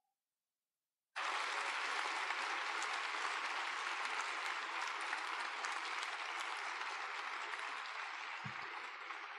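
Audience applauding, starting abruptly about a second in after a moment of silence and easing off slightly toward the end. A single low thump near the end.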